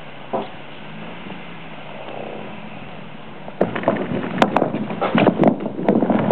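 Toyota Tacoma pickup's engine running low as the truck creeps forward, then from about three and a half seconds in a rapid run of loud cracks and creaks as its tires climb onto and roll over felled logs lying across the snowy track.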